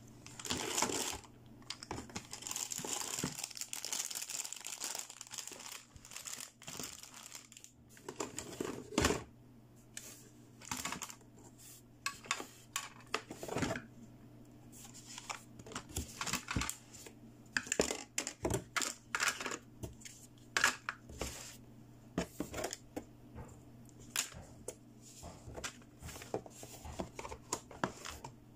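Clear plastic wrapping crinkling as toy pieces are handled, then a long run of light clicks and taps as hard plastic toy parts are picked up and set down.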